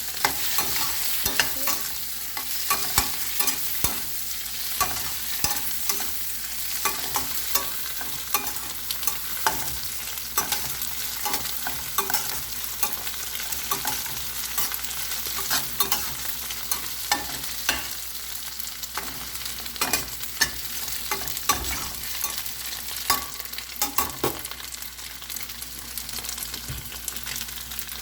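Tofu, fish balls and chopped vegetables sizzling as they stir-fry in a pan, with frequent irregular clicks and scrapes of a spatula against the pan.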